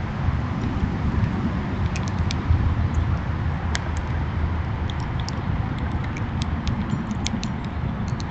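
Outdoor ambience: a steady low rumble with scattered short, sharp clicks and ticks that come more often from about two seconds in.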